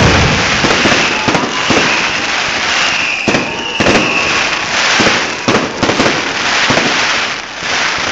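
Amateur fireworks going off overhead: dense crackling and popping with many sharp bangs. High whistles sound twice near the middle.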